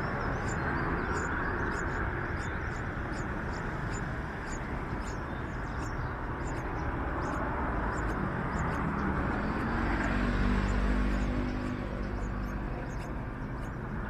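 Outdoor background noise with short, high chirps repeated throughout. A motor vehicle passes, swelling and rising in pitch from about eight seconds in and fading by about twelve.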